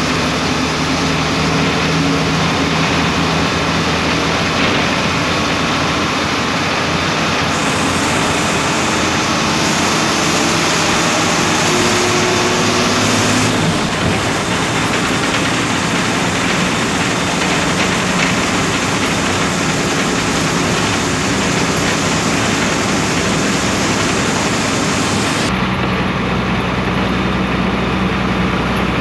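Diesel bus engine running as the bus drives along, heard from inside the driver's cab, with road and cabin noise. The engine's pitch shifts a few times, and the sound changes abruptly near the end.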